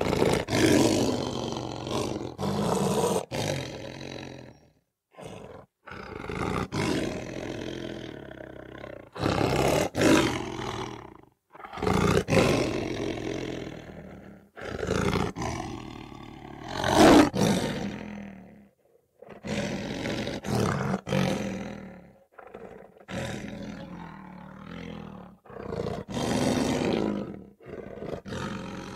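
A lion roaring repeatedly: about a dozen loud roars, each a second or two long, with short pauses between them and a few sharp clicks among them.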